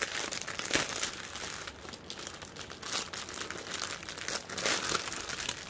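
Clear plastic packaging crinkling as it is pulled open and handled, with the small bags of diamond-painting drills inside shifting against it: a dense run of crackles.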